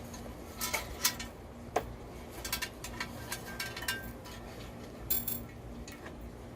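Small glass pieces clinking and tapping together as they are handled: about ten light knocks, scattered irregularly, some with a short high ring.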